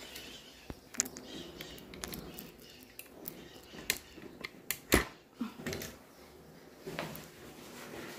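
Scattered light clicks and knocks from handling a honey extractor and the frames loaded in it, the sharpest knock about five seconds in; the extractor is not yet spinning.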